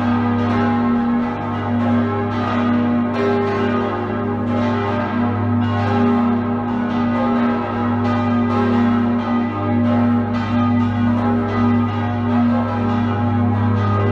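A peal of six swinging bronze church bells, tuned G♯, B, D♯, F♯, G♯ and E, ringing together. Strokes from the different bells overlap in a continuous wash over a deep, steady hum.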